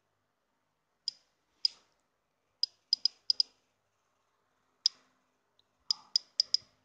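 Key-press clicks from a phone's on-screen keyboard during typing: about a dozen short, sharp ticks at an uneven pace, some in quick runs of two to four.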